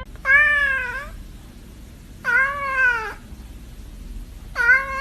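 A domestic cat meowing three times, each meow drawn out for most of a second and about two seconds apart.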